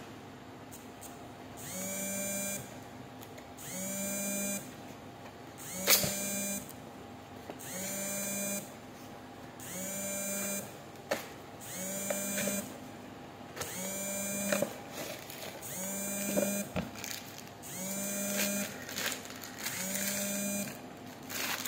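An electronic buzzer sounding a buzzing beep about every two seconds, each beep lasting under a second. A few sharp knocks and clicks from a filter box and its packaging being handled come in between, the loudest about six seconds in.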